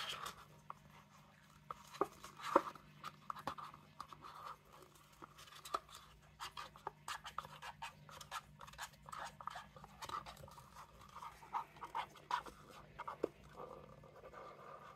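A stir stick scraping and tapping against the inside of a paper mixing cup in short, scratchy strokes, working the last of the resin out of the cup.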